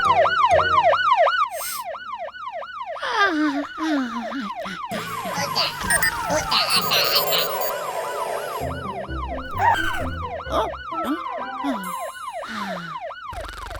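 Cartoon fire truck siren wailing in quick, repeating rise-and-fall sweeps, about three a second, with other cartoon sound effects mixed in around the middle.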